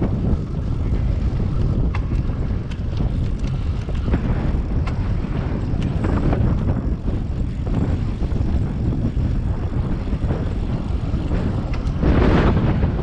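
Steady low rumble of wind buffeting the microphone of a camera on a moving bicycle, with a few faint clicks. A louder rushing swell comes about twelve seconds in.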